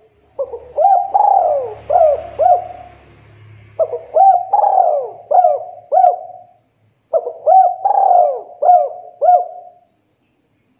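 Spotted dove cooing: three phrases of about five rolling coos each, every note rising and falling in pitch, with short pauses between the phrases.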